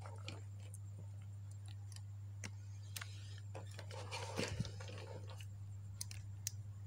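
Scattered small clicks and faint rustling from wires and parts being handled on an amplifier board, over a steady low hum.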